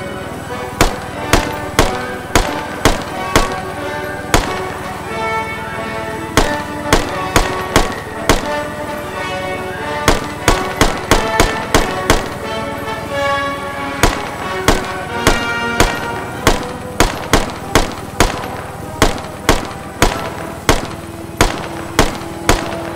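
Rifle fired from a helicopter in quick strings of shots, about forty in all, mostly around two a second with short pauses between strings, over background music.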